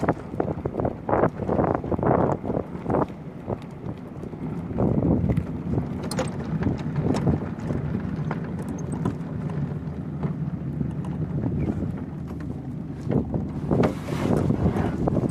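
Wind buffeting the microphone over the rumble of a land yacht's wheels rolling on a concrete runway, with frequent short clicks and knocks.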